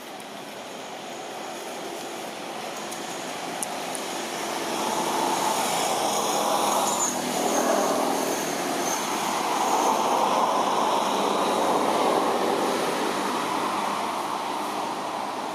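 A distant engine passing by: a steady drone that swells over the first few seconds, stays loud through the middle, then fades toward the end.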